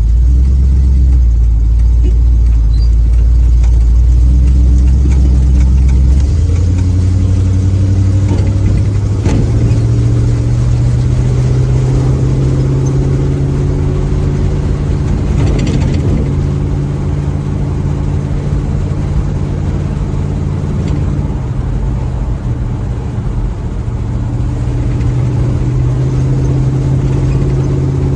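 Small-block Chevy 350 V8 running through its new exhaust, heard from inside the open cab while driving at low speed. The engine note climbs in a few steps over the first ten seconds, then holds as a steady drone with a brief dip near the three-quarter mark. This is the drone of sitting at about 40 km/h in second gear.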